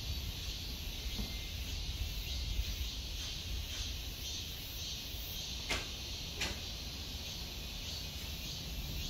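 Cicadas droning in a steady, gently pulsing high chorus over a low rumble, with two sharp clicks a little over halfway through.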